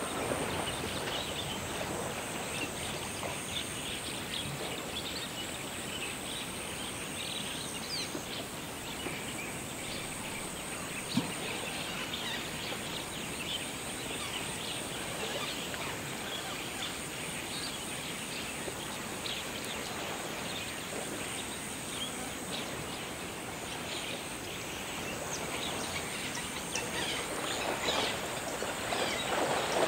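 Outdoor wildlife ambience: many short bird calls over a steady background hiss, with one sharp knock about eleven seconds in and the background growing somewhat louder near the end.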